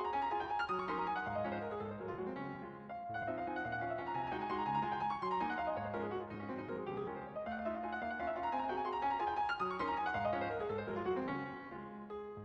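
Background piano music, with runs of notes sweeping up and down that recur about every four seconds.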